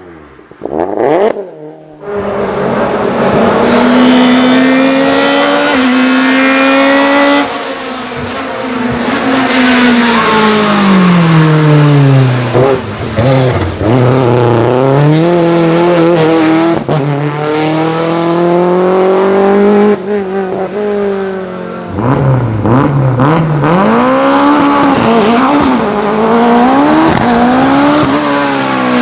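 Hill-climb race car engines at high revs, the pitch climbing through each gear and dropping on upshifts and lift-off, across a few cut-together runs.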